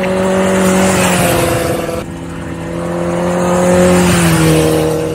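Sport bike engine running at steady high revs with wind rush over the microphone. The note swells twice, with an abrupt break about two seconds in, and eases slightly lower near the end.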